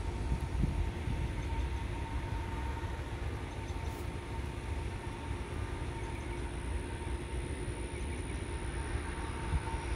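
Low, steady rumble of distant jet airliner engines, with a faint steady whine above it.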